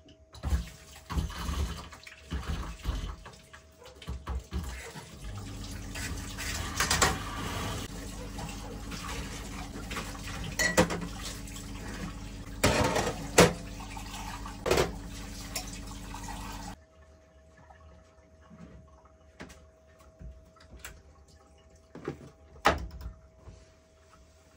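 Cups and dishes being washed by hand at a caravan's stainless steel sink, clattering and clinking. About five seconds in the tap runs with a steady hum under it; both stop abruptly about two-thirds of the way through, leaving only scattered light clinks as the washed cups are set down.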